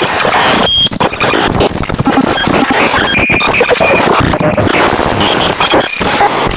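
Fan-made Emergency Alert System alarm audio: a loud, chaotic mash of distorted noise, with short electronic tones scattered through it.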